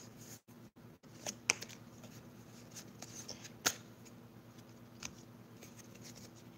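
Pokémon trading cards being handled and sorted by hand: faint sliding and flicking, with a few sharp card snaps, the loudest about three and a half seconds in.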